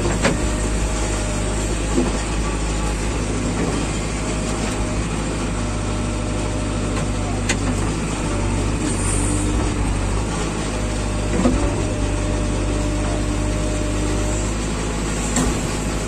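JCB 3DX backhoe loader's diesel engine running steadily, heard from inside the cab, with a whine that comes and goes as the backhoe levers are worked. Several sharp knocks stand out, loudest about two seconds in and near the middle and the end.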